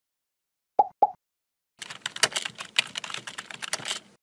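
Computer keyboard typing sound effect: a rapid run of key clicks lasting about two seconds. Before it, about a second in, come two short blips.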